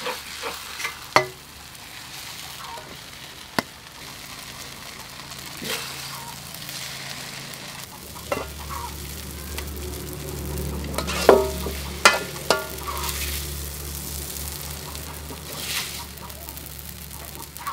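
Stir-fried glass noodles sizzling in a metal wok, with a metal spatula scraping and clinking against the wok and serving bowl several times as the noodles are dished up, over a low steady hum.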